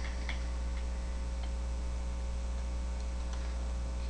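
Steady low electrical mains hum, with a few faint scattered computer-keyboard clicks.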